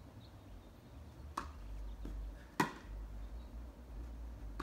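Tennis rally: a racket strikes the ball about a second and a half in, and a second, louder racket hit follows a little over a second later, with a softer knock of the ball between them.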